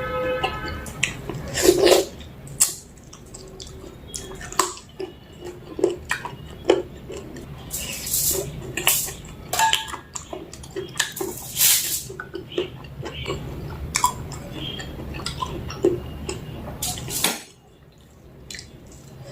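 Close-up eating sounds of a meal of mutton curry with rice: irregular wet chewing and lip-smacking clicks, with a few longer wet sucking sounds about eight to twelve seconds in, over a low steady hum.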